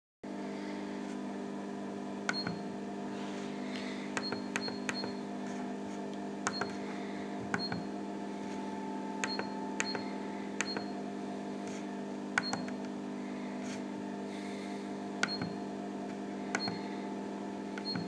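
Control-panel keys on an Anton Paar Multiwave 3000 digestion microwave being pressed about fifteen times at irregular intervals. Most presses give a sharp click with a very short high beep, over the instrument's steady hum.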